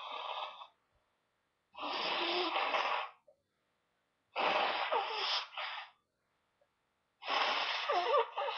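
A person blowing a running nose hard, again and again: a noisy rush of air that trails off just after the start, then three more blows of a second or so each, the later ones with a wet, wavering rattle.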